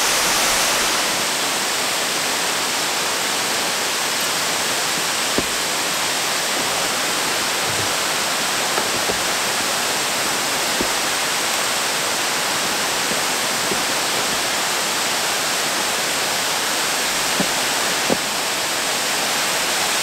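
Steady rushing of a waterfall in winter, with a few faint clicks about five seconds in and near the end.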